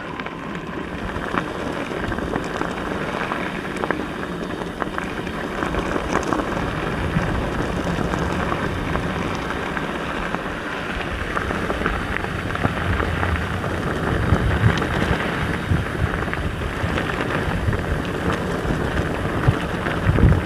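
Mountain bike running fast down a rough dirt trail: a steady rush of tyres over dirt and gravel with constant small clatters and rattles from the bike, and heavier low thumps over bumps in the second half.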